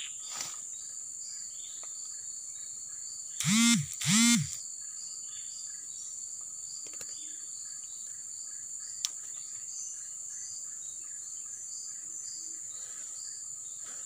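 Steady high-pitched drone of forest insects, with faint repeated short chirps under it. About three and a half seconds in, two loud short voice sounds from a man, each rising then falling in pitch, and a single sharp click near nine seconds in.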